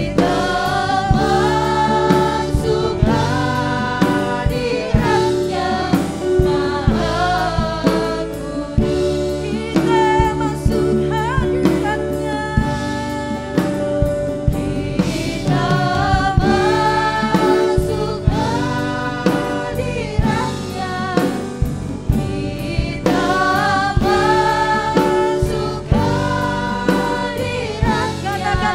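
Contemporary Christian worship song: a group of singers over a band with drum kit keeping a steady beat.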